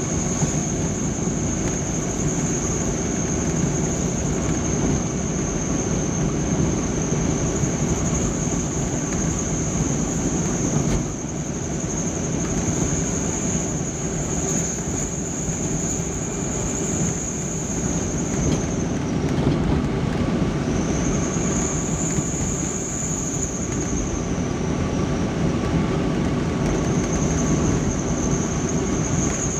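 Truck on the move: steady engine and road noise with a high whine on top, which breaks off twice in the second half and comes back.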